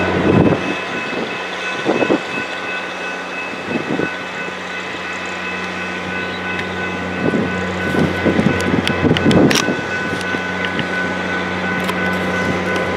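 EMD F-unit style diesel locomotive running slowly with passenger coaches: a steady engine hum with a steady higher whine over it, and a few short bumps of wind on the microphone.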